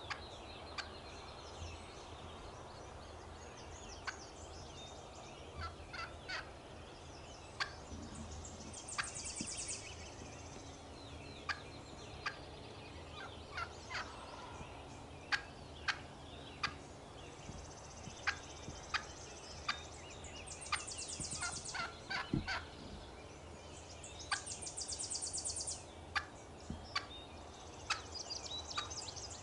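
Young wild hen turkey clucking: a long, irregular series of short, sharp single clucks, closer together in the middle and later part. A high, rapidly pulsed buzzing comes and goes several times.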